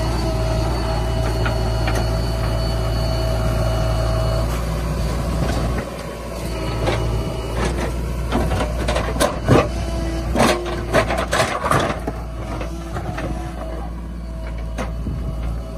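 Heavy diesel machinery running steadily, with a tone change about six seconds in, then a run of sharp clanks and knocks in the middle.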